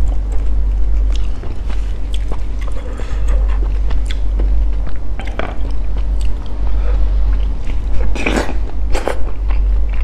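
Close-miked chewing and wet mouth sounds of eating sticky rice soaked in durian coconut sauce, with a wooden spoon working through the rice and dipping into the sauce. There are two louder wet sounds about eight and nine seconds in, over a steady low hum.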